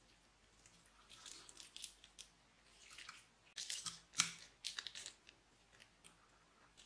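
Clear plastic piping bag crinkling in the hand as sequin confetti is shaken out of it into a glass dish. The sound comes in short, faint crackly bursts, loudest about four seconds in.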